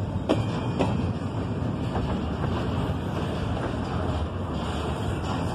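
Double-stack intermodal freight cars rolling past: a steady rumble of steel wheels on rail, with a couple of sharp clacks from the wheels near the start.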